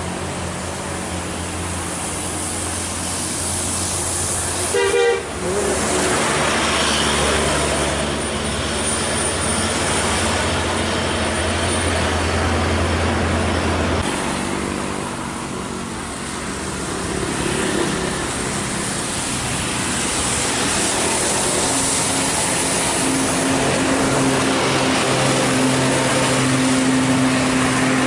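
Large buses and a Hino truck driving past on a wet road, engines running and tyres hissing on the wet surface, with a short horn blast about five seconds in.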